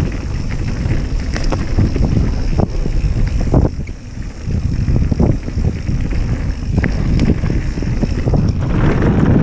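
Mountain bike riding fast down a dirt trail: constant wind buffeting the microphone and tyre rumble, with scattered clicks and knocks from the bike rattling over bumps and roots.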